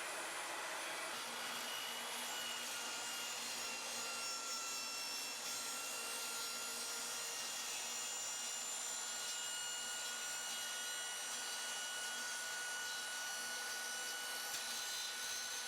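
SawStop compact table saw running, its spinning blade being raised slowly up through a replacement table insert to cut the zero-clearance slot. A steady, even hiss with a faint high whine that does not change.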